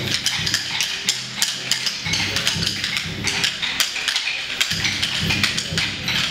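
Several dancers striking short wooden dance sticks together in a stick dance, quick clacks several a second, over recorded music.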